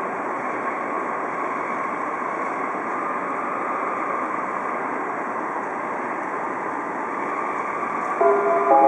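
Steady steam hiss from a DR Class 23.10 steam locomotive standing with its train. Near the end, a louder sustained sound of several held pitches sets in.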